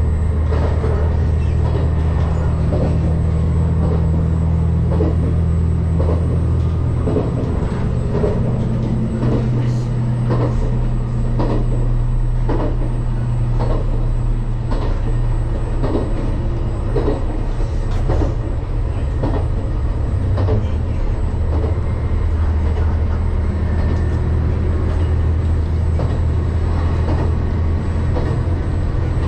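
Interior sound of a JR 2700 series diesel limited express train under way: a steady low engine drone and rumble, its pitch shifting about seven seconds in and again later on, with scattered clicks and knocks from the car and track.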